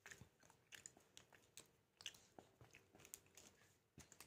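Faint chewing and biting of food: a run of soft crunchy clicks at uneven intervals.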